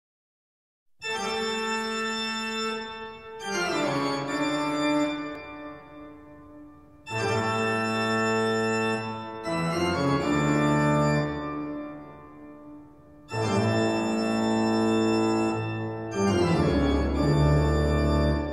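Background music of slow, sustained chords starting about a second in and changing every three seconds or so.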